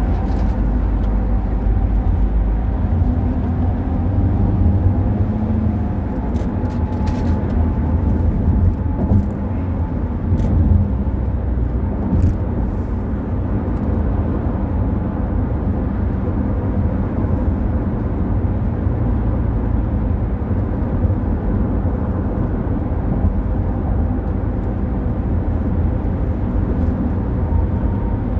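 Steady road and engine rumble inside a moving car's cabin, as picked up by a dashcam microphone, with a few faint ticks a few seconds in.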